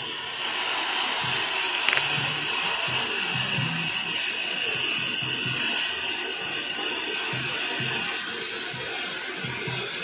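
Oxy-fuel cutting torch hissing steadily as it cuts a flat steel bar, starting about half a second in and easing off near the end. Music plays underneath.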